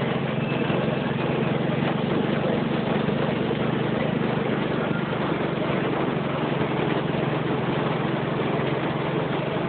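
Heavy rain on a car with its engine idling, heard from inside the cabin: a steady, even hiss over a low engine hum.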